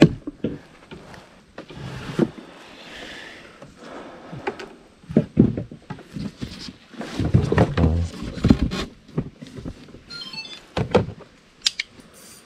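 Irregular knocks and thumps of movement against a wooden boat's hull and seats, with a brief run of fast ticks about ten seconds in.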